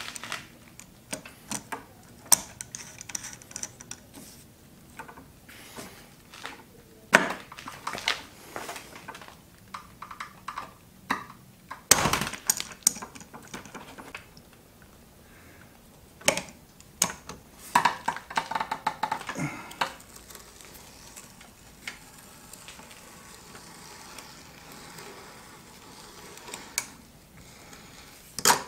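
Large metal pliers clicking, knocking and scraping against the pinion end of a Subaru WRX STI power steering rack as it is worked on by hand: an uneven run of sharp metallic clicks, with one loud knock about halfway through and a busy patch of clatter a little later.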